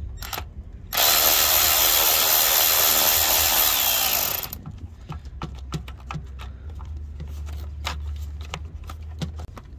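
Cordless power tool driving a socket on a long extension to loosen a 10 mm ignition coil-pack bolt on a Hemi V8. It runs steadily for about three and a half seconds from about a second in, its motor whine dropping in pitch as it stops. Light clicks and taps of the tool and socket follow.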